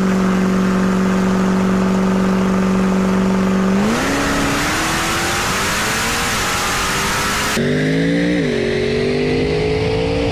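Drag racing car engine held at a steady high rev for about four seconds, then rising in pitch as the car accelerates down the strip. Near the end the pitch drops briefly, like a gear change, then climbs again.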